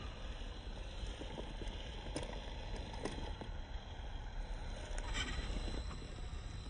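Radio-controlled WPL C24 crawler driving slowly over rocks and loose dirt: scattered knocks and crunches of its tyres on stones over a steady low rumble, with a louder stretch of crunching about five seconds in.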